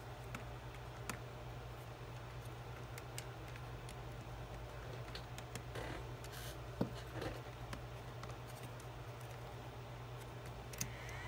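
Small clicks and scratches of hand assembly: a small screwdriver and the clear acrylic parts of an 18650 battery test holder being handled and fitted together. The sharpest click comes about seven seconds in.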